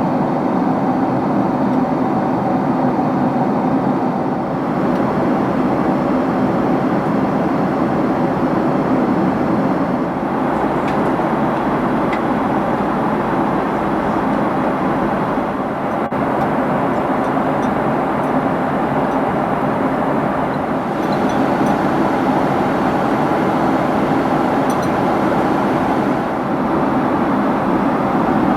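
Boeing 767-300 cabin in flight: a steady drone of engines and airflow, with a faint even hum underneath.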